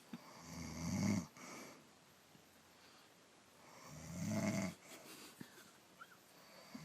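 A woman snoring in her sleep: two snores about three and a half seconds apart, each swelling in loudness and then breaking off, followed by a softer breathy hiss.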